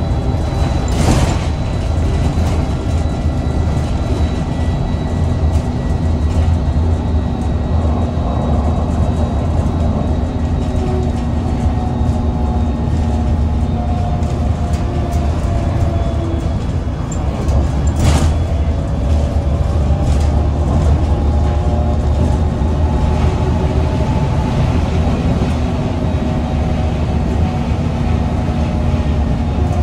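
Interior of an Irisbus Citelis 18 GNV articulated bus under way: a steady low drone of its Iveco Cursor 8 natural-gas engine and road noise, with faint whining tones that come and go. Two brief knocks, about a second in and near the middle.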